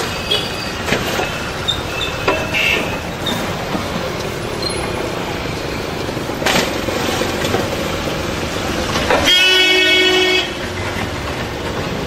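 Steady street traffic noise, with a single vehicle horn honk lasting about a second and a half, about nine seconds in. A few knocks of charcoal being shovelled onto a metal pot lid.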